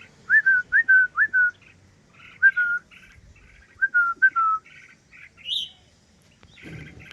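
Bulbuls calling: runs of short whistled notes, each with a quick upward flick, in three bursts, with softer chattering between them and one higher note about two-thirds of the way in.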